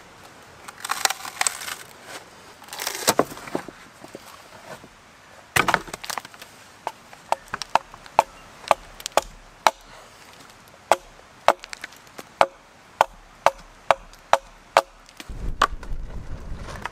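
Timber being split by hand: the wood cracks and splinters as it comes apart, then a run of sharp knocks of a tool striking the wood, about two a second, each with a short ring. Wind gusts on the microphone near the end.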